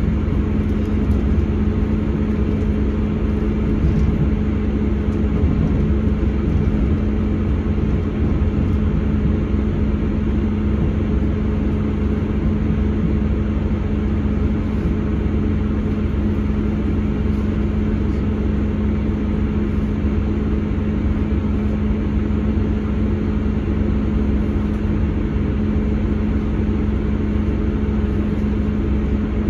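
Inside the passenger saloon of a Class 159 Sprinter diesel multiple unit: the underfloor Cummins diesel engine hums at a steady pitch over a constant rumble of wheels on track as the train draws into a station platform.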